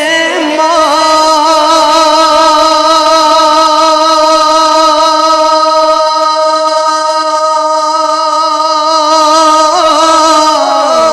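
Male naat reciter singing, holding one long note for about nine seconds before the melody moves on near the end.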